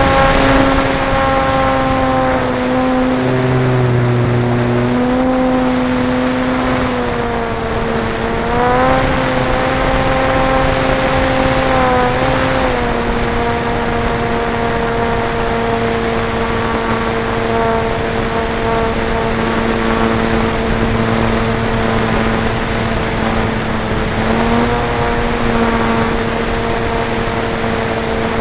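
Electric motor and propeller of a ParkZone Stinson Reliant RC plane, heard from a camera on the plane: a loud steady whine, steps down in pitch about halfway through and rises briefly near the end, over rushing wind.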